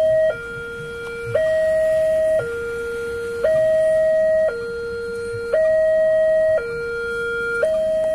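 Railway level-crossing warning alarm sounding from the loudspeaker on the crossing signal mast. It is an electronic two-tone signal that alternates a higher and a lower note, each held about a second. It is the signal that a train is approaching and the crossing is closed to road traffic.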